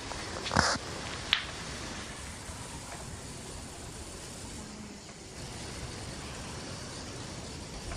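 A cat snoring: a low, steady rumbling breath noise. There is a brief rustle about half a second in and a sharp click about a second in.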